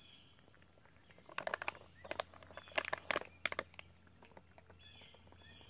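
Crackling clicks of thin plastic as a soft water pouch is squeezed to force water through an inline filter into a bottle, coming in several bunches from about one and a half to three and a half seconds in. Small birds chirp faintly near the start and near the end.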